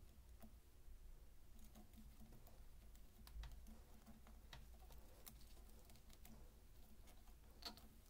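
Faint, scattered ticks and clicks of thin copper wire being bent and wound by hand around a rubber hose end, with one slightly louder click near the end.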